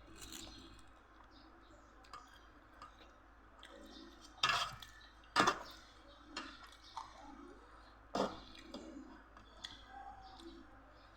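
Close-up eating sounds of someone chewing seafood papaya salad: soft wet chewing broken by a few sharp clicks or crunches, the loudest about four and a half, five and a half and eight seconds in.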